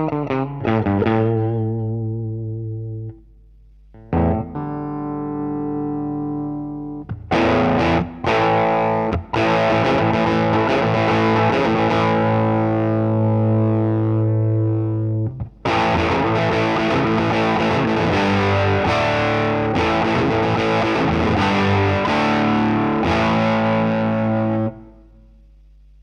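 Electric guitar, a Fender Stratocaster, played through a Line 6 Helix amp-and-cab model with distortion. A few picked notes ring out and fade, then comes a held chord, then a long run of strummed distorted chords with one short break. The chords stop short near the end, leaving a faint hum.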